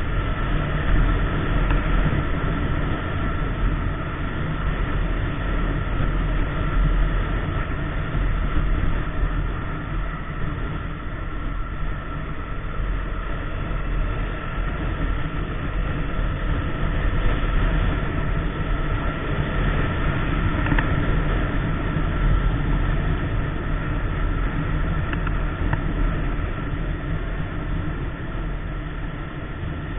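KTM Duke 390 single-cylinder engine at a steady highway cruise, under heavy wind rush on the microphone.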